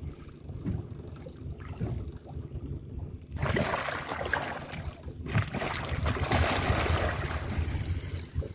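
A large manguruyú catfish thrashing at the surface beside the boat, splashing water in two loud bursts starting about three seconds in and again just after five seconds. Wind rumbles on the microphone.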